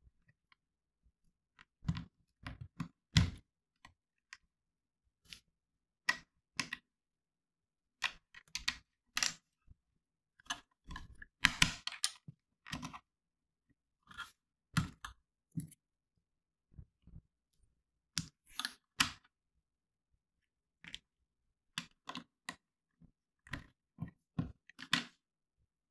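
Plastic LEGO bricks being handled and pressed together: irregular short clicks and rattles with brief pauses between, and a denser run of clicks about eleven seconds in.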